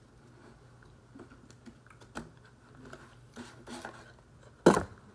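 Close-up chewing of crunchy wavy Pringles potato crisps: scattered small crunches and mouth clicks, then one short, much louder sharp crack near the end.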